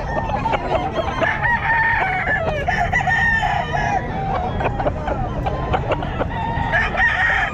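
Several gamefowl roosters crowing, their calls overlapping one another throughout.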